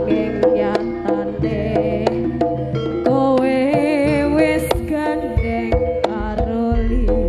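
Javanese jaranan music played live: kendang hand-drum strokes in a quick pattern under sustained melody tones, with a wavering melody line rising above them about three seconds in.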